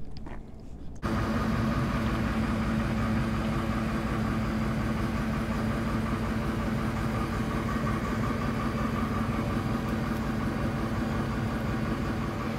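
Hyster forklift engine idling steadily, starting abruptly about a second in.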